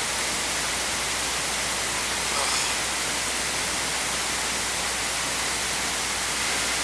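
Steady, even hiss of room tone and recording noise, with no distinct event.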